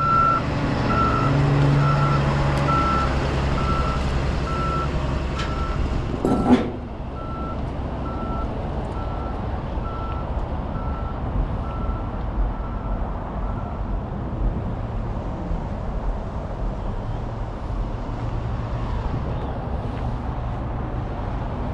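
Heavy diesel truck engine running, with a backup alarm beeping steadily until it stops about two-thirds of the way through. There is one brief loud burst about six seconds in.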